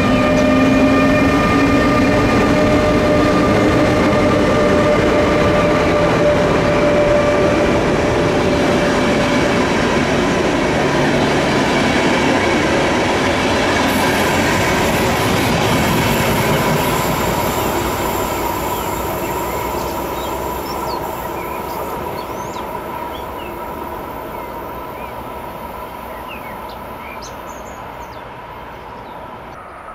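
An electric train passing close by, its whine rising at first and then holding steady over the rumble of the wheels. The sound fades away steadily over the second half, and birds are chirping near the end.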